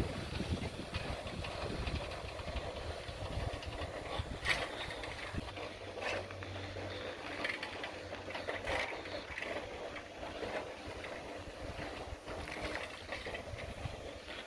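Bicycle ridden over a rough dirt road: a steady rolling rumble with scattered rattles and knocks, and a low steady hum for several seconds in the middle.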